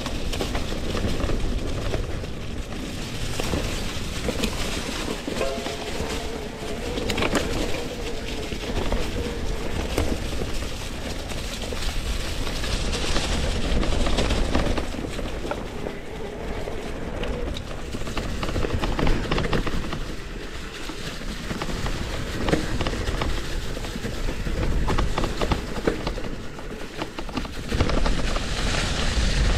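Mountain bike riding over a rough trail: continuous tyre noise with chain and frame rattle and small knocks, under a low rumble of wind on the microphone.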